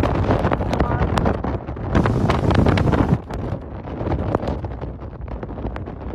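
Hurricane-force wind blasting the phone microphone, a heavy rumbling buffet with many sharp hits, easing a little after about three seconds.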